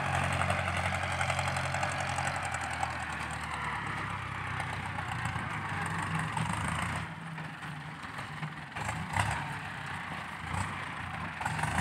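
Ford 6640 tractor's diesel engine running steadily under working load with a harsh exhaust note while the tractor pushes soil with its front dozer blade. It grows quieter about seven seconds in.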